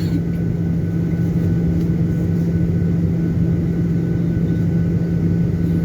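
Steady engine hum and low rumble inside the cabin of a Boeing 737-800 with CFM56-7B turbofan engines running, with a faint thin whine above it.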